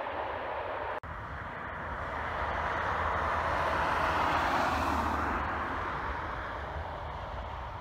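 Jet airliner's engines passing low over the runway as it lands, swelling to their loudest about four to five seconds in and then fading away.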